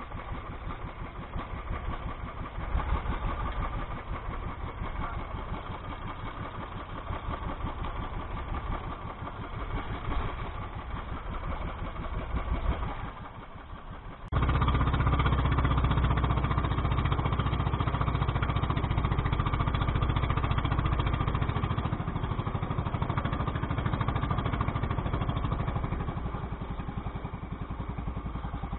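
Small outboard-style engine of a motorized outrigger boat running steadily, with a fast even beat. It drops briefly about halfway, then comes back noticeably louder.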